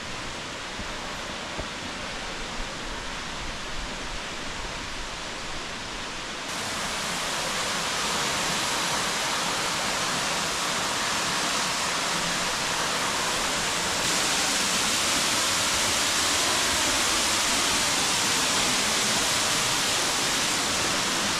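Henrhyd Falls waterfall: a steady rush of falling water. It grows louder in two steps, about six seconds in and again past the middle, as the falls get nearer.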